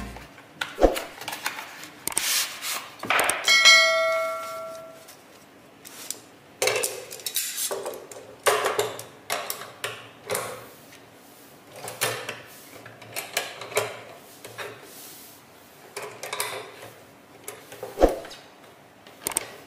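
Aluminium folding laptop stand being handled and adjusted: irregular metallic clacks, clicks and rattles as its hinged parts are moved, with one bell-like ding about four seconds in.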